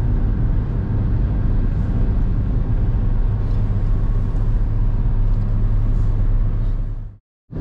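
Steady road and engine rumble inside a car's cabin at highway speed. It cuts off abruptly for a moment near the end.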